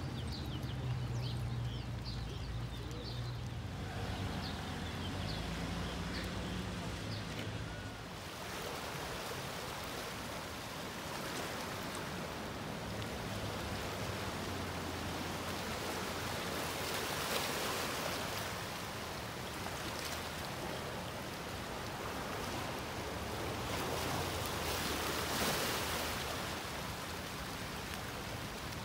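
Shallow seawater lapping and washing at a rocky shoreline, an even rush that swells twice, once past the middle and again near the end. For the first several seconds a low hum and faint high chirps sit under a quieter wash.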